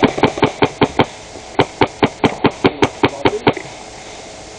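Airsoft gun firing rapid single shots, about five or six a second, in two strings with a short pause between, stopping about three and a half seconds in.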